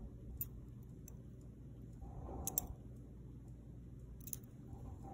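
Faint, light clicks of lightweight hoop earrings and their metal ear wires being handled: a few sharp ticks, with a close pair near the middle the loudest.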